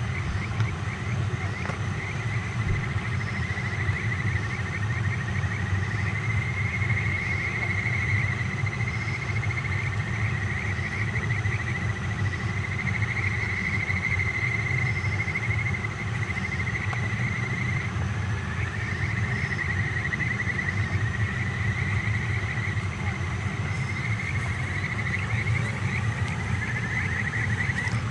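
Night insects trilling continuously, a dense, rapidly pulsing high chirring that wavers slightly in pitch, with faint regular ticks from another caller above it. A steady low rumble runs underneath.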